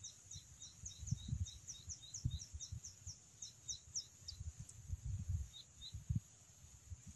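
A bird calling a fast, even series of short, high, falling chirps, about three a second, that stops about four seconds in, with two more near the end. Low rumbles of wind on the microphone underneath.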